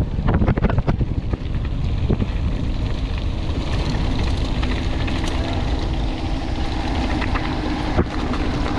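Mountain bike descending at speed. The frame and chain rattle over rough ground for the first second or so, then the tyres and wind settle into a steady rush, with one sharp knock near the end.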